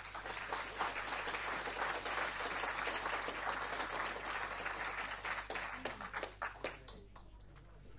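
Audience applauding, dense at first, then thinning to a few scattered claps over the last two seconds.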